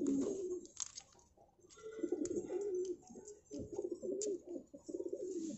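Domestic pigeons cooing in several low, wavering phrases, with about three sharp clicks from scissors snipping open a small plastic container.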